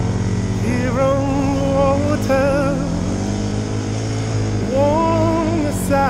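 A song with a singer holding wavering notes in two phrases, over the steady running of a Hisun 450cc ATV engine.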